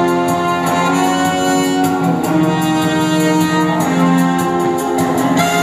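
Orchestral music from a stage musical's dance number, with strings holding long notes over a steady accompaniment.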